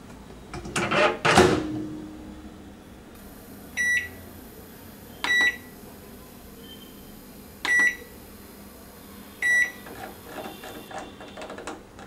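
Microwave oven door shut with a loud thud about a second in, then four short keypad beeps, one to two seconds apart, as the cooking time is keyed in, with a few softer button clicks near the end.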